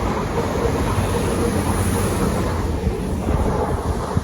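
Train passing a level crossing: a steady rumble that eases slightly near the end.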